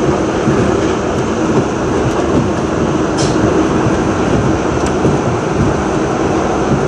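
R62A subway train on the 7 line running steadily through a tunnel: a loud, continuous rumble of wheels on rail and running gear, with a steady hum underneath and a few faint ticks.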